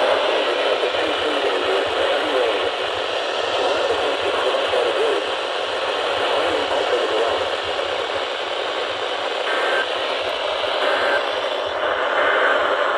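Radio receiver on a weak, noisy signal: steady hiss and crackle of static with no clear voice, and a few faint short tones in the last few seconds.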